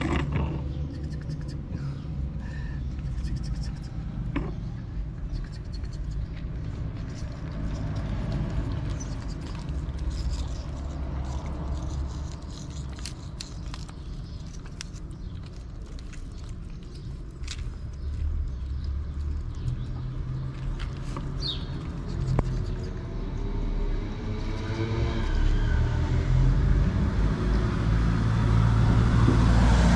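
Low outdoor street rumble, growing louder over the last few seconds as a motor vehicle approaches, with scattered light clicks and scrapes.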